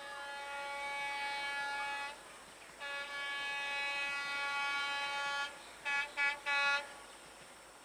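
EMD diesel locomotive's horn sounding: a blast of about two seconds, a longer blast of about two and a half seconds, then three short toots in quick succession.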